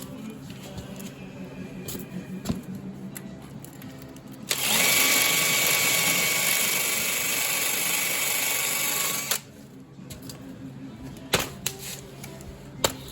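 A power tool runs at a steady speed for about five seconds, with a high whine, starting and stopping abruptly near the middle. Around it are a low steady hum and a few sharp knocks.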